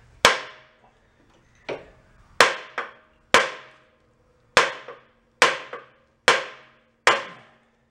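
Repeated hammer blows on the centre of a stuck flywheel, about one a second, each a sharp metallic strike that rings briefly. The flywheel is seized on its shaft and is not coming loose.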